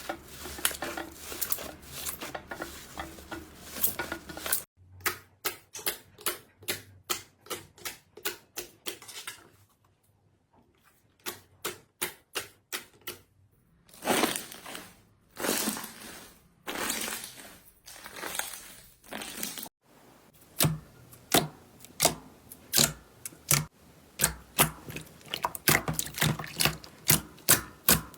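Slime being poked, pressed and squished by hand, making runs of crisp clicks and crackles that come in quick trains, with a near-quiet pause about ten seconds in.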